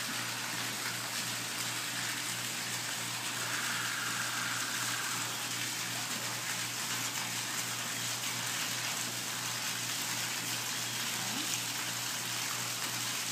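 Steady rushing of water, like a small waterfall or stream in a museum diorama, with a low steady hum underneath.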